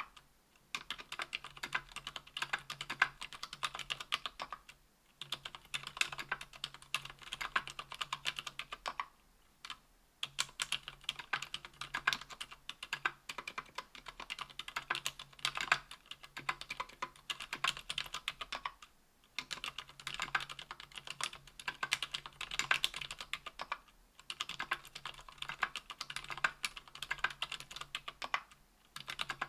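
Typing on lubed ZealPC Healios silent linear switches (63.5 g) in a KBDfans Tofu 60% aluminium case with aluminium plate and GMK keycaps: a fast, steady stream of keystrokes, broken by short pauses about five, ten, nineteen and twenty-four seconds in.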